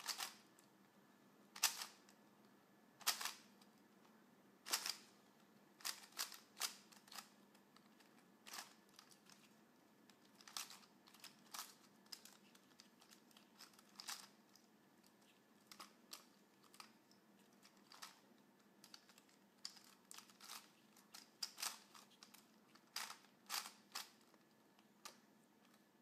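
Plastic 3x3x5 twisty puzzle being turned by hand: its layers click and clack in sharp, irregular clicks, sometimes two or three in quick succession, with short pauses between turns.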